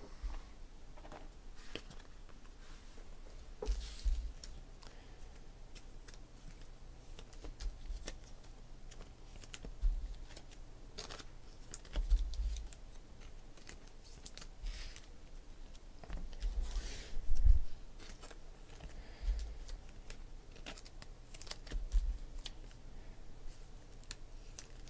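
Trading cards and card packs being handled on a table: scattered light clicks and rustles with a few soft thumps.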